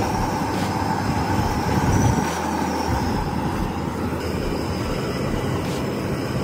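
Dry leftover roti being rubbed by hand across a perforated metal grater, a steady scraping as it crumbles.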